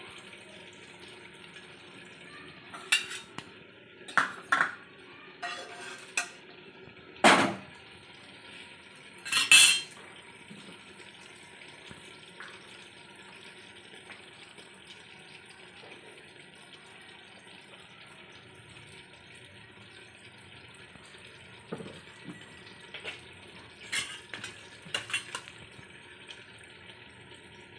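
Metal pans and utensils clattering on a gas stove: several sharp knocks and clanks in the first ten seconds, then a few lighter clinks near the end, with quiet between.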